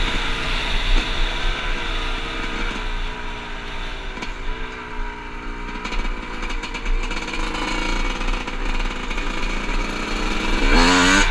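Two-stroke dirt bike engine riding along, revving up and shifting up through the gears: the pitch climbs and drops back a few times, then settles into a steadier, quieter run. Just before the end it gets louder as the throttle opens again.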